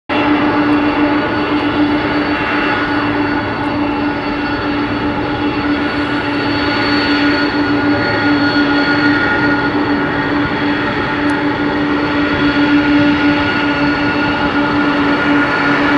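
Boeing 747-400 freighter's four jet engines running at taxi power as it rolls past: a steady jet hum with one strong low tone and several higher tones, growing a little louder toward the end.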